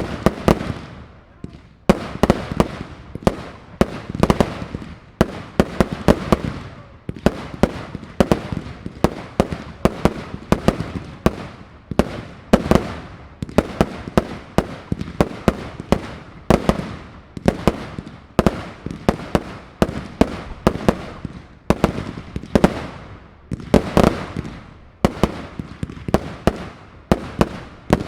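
Aerial fireworks display: a continuous barrage of shell bursts, several bangs a second, each trailing off in crackle and echo.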